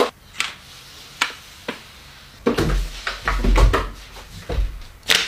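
A person's eating and handling noises: a few short, sharp clicks, then about two seconds of louder rustling and bumping with deep thuds, and another sharp click near the end.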